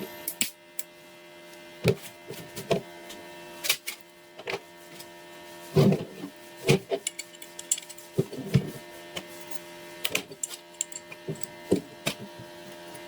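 Irregular clicks and knocks of small hard parts being handled and fitted, over a steady hum.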